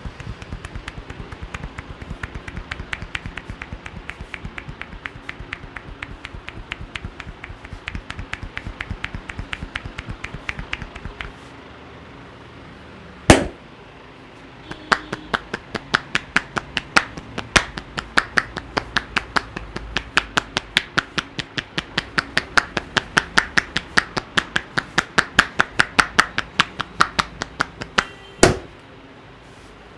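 Percussive hand strikes of an Indian head massage: the barber's hands tap rapidly and evenly on the head, several strikes a second. The first run lasts about eleven seconds, a single sharp, much louder slap comes about two seconds later, then a second long run of taps with regular louder accents, ending in another loud slap near the end.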